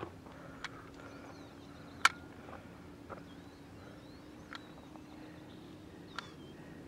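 Faint outdoor ambience: small birds chirping in short gliding calls over a steady low hum, with several sharp clicks, the loudest about two seconds in.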